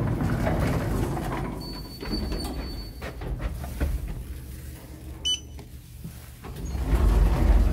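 Elevator sliding doors and car rumbling low, with a short electronic beep from the floor-button panel about five seconds in as a button is pressed.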